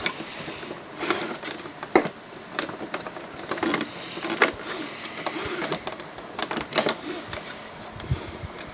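Irregular clicks, taps and short scrapes of small plastic parts in a DVD player's disc-loading mechanism being pushed and worked by hand. The mechanism is stiff and hard to move.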